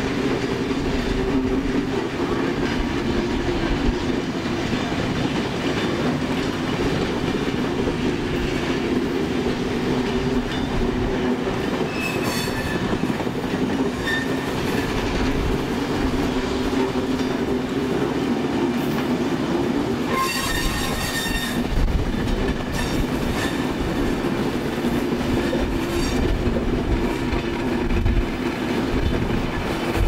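Railway train running on the track, with a steady low hum and brief high-pitched wheel squeals about twelve seconds in and again around twenty seconds in.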